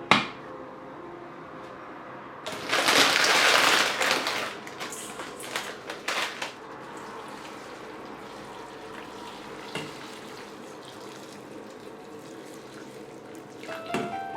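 Water running from a kitchen tap for about a second and a half, then a few splashes and clatters in the sink.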